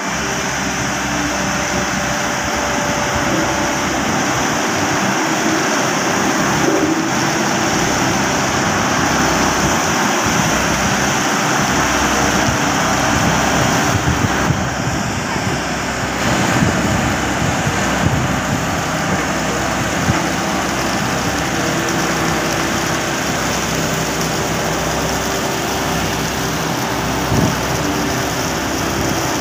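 Diesel engine of a single-drum road roller running steadily as it rolls over a loose gravel layer. Near the end, water from a hose splashes onto the stones.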